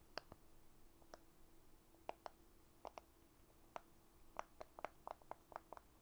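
Bubbles of a round silicone pop-it fidget toy popping as they are pressed one after another: faint, short, irregular clicks that come quicker about four and a half seconds in.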